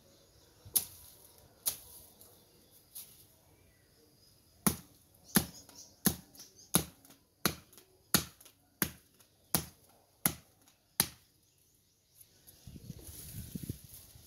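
A hand blade chopping at the base of weeds and brush stems in sharp, separate strokes. There are two chops early on, then a steady run of about ten, roughly three every two seconds, and stems and leaves rustle near the end.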